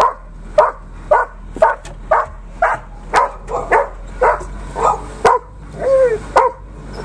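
Dogs barking repeatedly and excitedly at a familiar passing car, about two barks a second, with a couple of short whining yelps mixed in, over a low steady hum.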